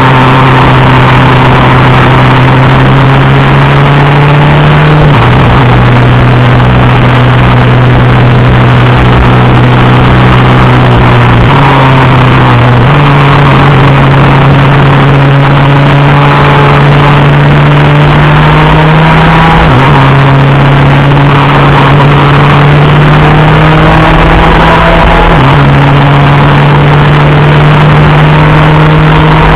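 Superkart's two-stroke engine at racing speed, its note climbing steadily and then dropping sharply at each gear shift, about five times. Loud, with a steady rush of wind and road noise.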